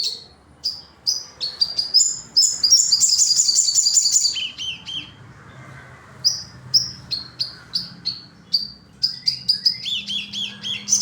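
Crimson sunbird (sogon) singing vigorously: a run of sharp, high chips broken by two fast, buzzy trills, one about two and a half seconds in and one near the end, each followed by a few quick falling notes.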